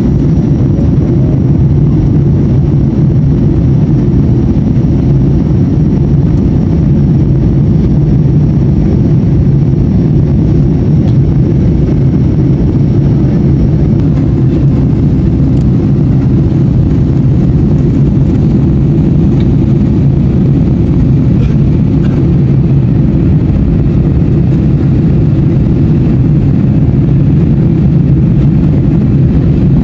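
Steady low roar of an airliner cabin in flight: engine and airflow noise heard through the fuselage, with a faint thin high whine that fades out about halfway.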